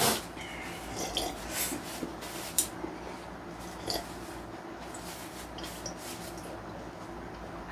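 Someone drinking from a plastic cup: a handful of short gulping and swallowing sounds, with a paper tissue rustling.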